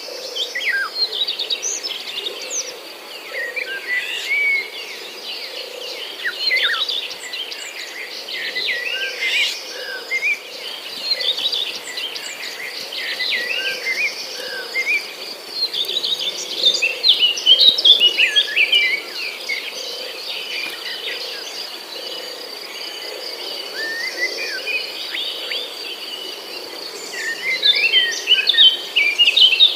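Many songbirds chirping and twittering, with quick overlapping calls and a busier flurry near the end, over a steady high insect trill. A faint low call repeats about once a second underneath.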